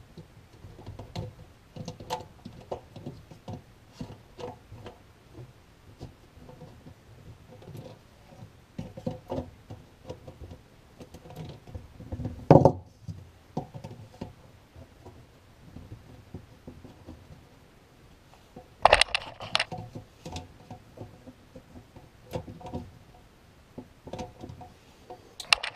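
Plastic sink-drain P-trap parts being handled and fitted together: light tapping, clicking and scraping of plastic pipe pieces and slip nuts, with a louder knock about halfway through and another about three-quarters of the way in.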